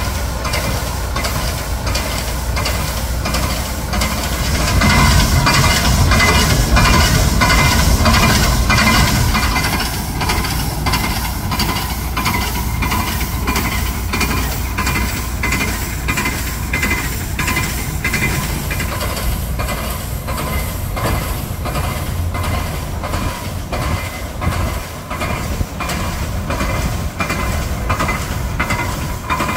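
A GE 25-ton diesel switcher idles on a rotating railway turntable, making a steady low rumble with a regular clicking. It gets louder for a few seconds, starting about five seconds in.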